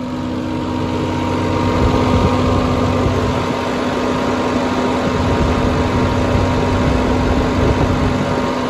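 A 7-kilowatt generator set's 600 cc engine running steadily on test.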